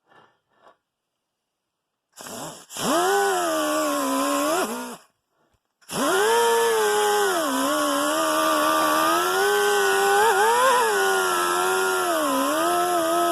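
Electric power tool running, switched on about two seconds in, stopping for about a second near the five-second mark, then running again. Its pitch dips and rises as it is pressed into the metal work and eased off.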